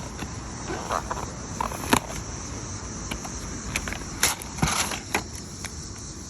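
Packaging of a motorcycle tank protector being opened and handled: scattered crinkles and sharp clicks, the loudest about two seconds in and again around four and a half seconds in, over a steady chirping of crickets.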